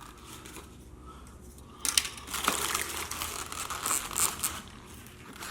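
Takeout food packaging crinkling and tearing as it is handled, starting about two seconds in with a run of crackly rustles.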